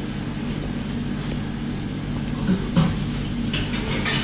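Steady low machine hum throughout. A fork clicks a few times against a plate, once a little before three seconds in and again near the end.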